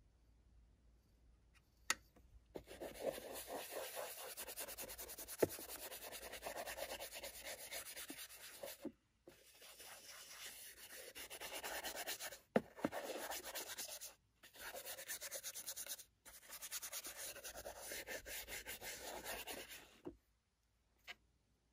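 A stiff brush scrubbing weathering powder into a paper model roof sheet, making a fast scratchy brushing in long stretches. It starts a couple of seconds in, breaks off briefly three times and stops shortly before the end, with a few sharp clicks along the way.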